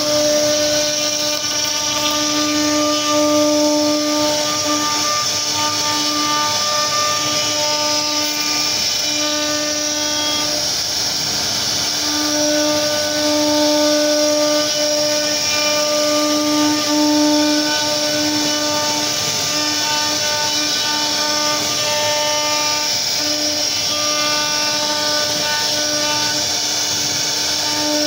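CNC router spindle running with a steady whine over a hiss as its bit cuts curved grooves into a wooden panel. The whine fades and returns as the bit works, weakest around a third of the way in.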